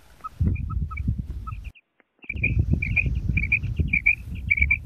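Female quail calling: a quick run of short, high chirping notes, coming thick and fast in the second half, over a low rumble on the microphone. The sound drops out completely for about half a second near the two-second mark.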